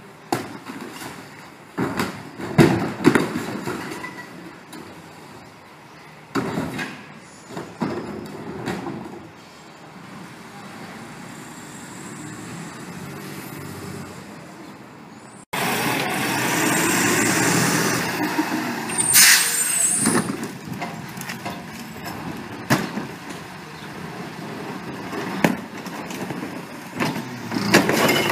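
CNG Mack/McNeilus rear-loader garbage truck collecting recycling: the engine runs while carts are tipped into the hopper with scattered knocks and clunks, at first heard from down the street, then up close, where the truck is louder. About two-thirds of the way in there is a short burst of hiss.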